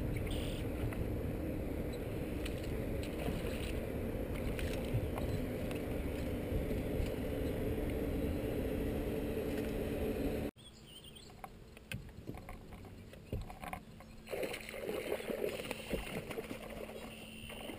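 Steady wind and water noise with a low hum aboard a bass boat. About ten seconds in it cuts off abruptly to a much quieter stretch of faint water, small knocks and a steady low hum.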